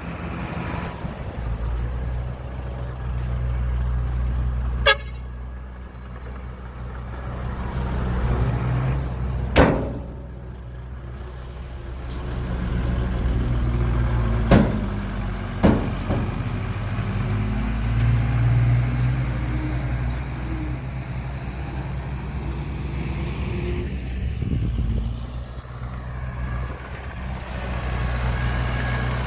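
Heavy diesel engine of earthmoving machinery running under varying load, rising and falling several times. Four sharp knocks or clanks cut through it, the loudest about ten seconds in.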